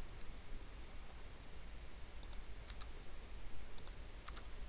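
A handful of short, faint computer mouse clicks, several in quick pairs, over a steady low hum.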